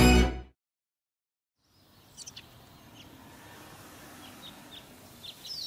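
Music stops abruptly, a second of silence follows, then outdoor ambience fades in with birds chirping: short, high, quick downward chirps that come more often near the end.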